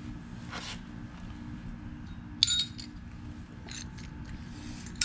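Small metal pieces clinking, likely parts or tools being handled during a carburetor swap: one sharp ringing clink about halfway through, then fainter clicks a little over a second later, over a low steady hum.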